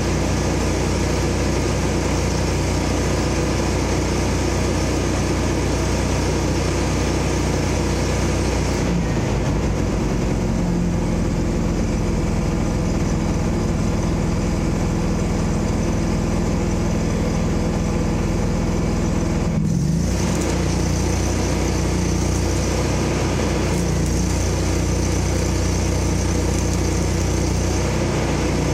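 Vehicle engine idling steadily. From about nine seconds in its low note changes for some ten seconds, then snaps back suddenly.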